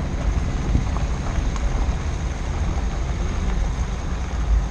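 Dacia Duster driving on a rocky dirt track, heard from a microphone mounted outside the car by the wheel: a steady low rumble of tyre and wind noise, with a few faint clicks of gravel under the tyres.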